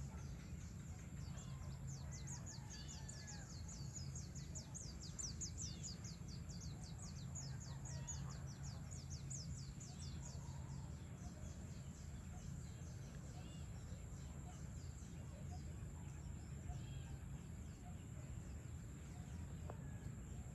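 Evening outdoor ambience: scattered bird calls over a steady low background rumble, with a fast run of high, thin chirps, about five a second, from about two seconds in until about halfway.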